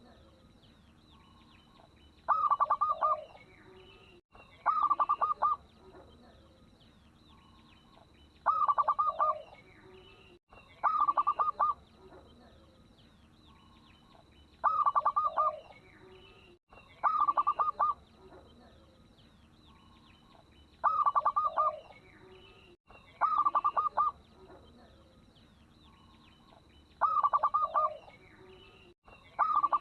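Local perkutut (zebra dove) cooing: short, quick staccato trills ending on a lower note. They repeat about every two to four seconds, in pairs, with faint chirping from other small birds underneath.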